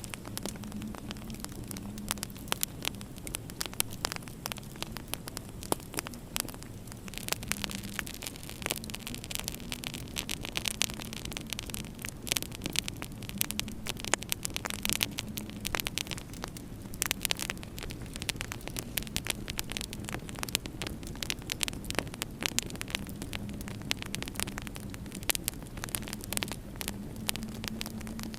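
Wood fire crackling with many sharp irregular pops over a steady low hum. A higher hiss joins about seven seconds in and drops away around sixteen seconds.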